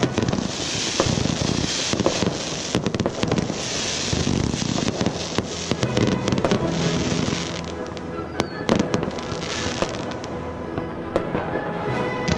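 Fireworks display: a dense run of bangs and crackling from bursting aerial shells, with music underneath.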